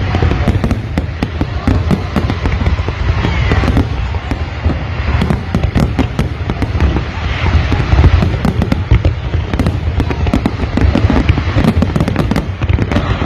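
A large aerial fireworks display going off in a dense, unbroken barrage: many sharp cracks and pops over a steady low rumble of booming shell bursts.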